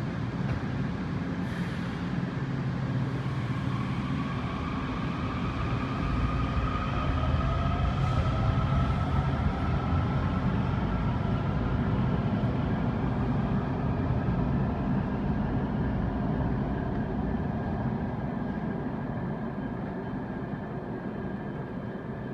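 Washington Metrorail train running: a steady rumble with the electric traction motors' whine rising slowly in pitch through the first half as the train gathers speed. The rumble eases slightly near the end.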